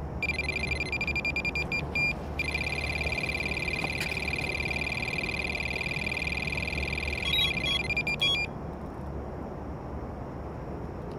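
Electronic carp bite alarm going off on a run: a fast string of beeps, then one unbroken high tone for about six seconds that cuts off suddenly. This is a 'one-toner', the sign of a fish ripping line off the reel.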